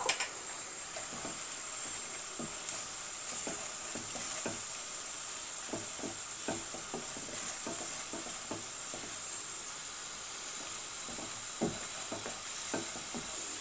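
Spice paste of ground garlic and shallot sizzling in oil in a non-stick frying pan while it is stirred and scraped with a silicone spatula. A steady sizzle runs under frequent short spatula scrapes, with a sharp knock right at the start.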